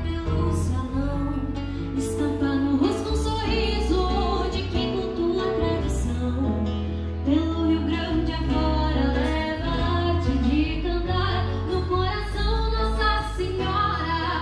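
Live gaúcho regional folk song: a young woman and a girl singing, accompanied by strummed acoustic guitars over a steady low bass.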